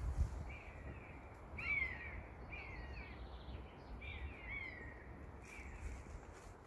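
Common buzzards calling overhead: about six short, high calls, each gliding downward, the clearest about two seconds in. A low rumble of wind or handling runs underneath.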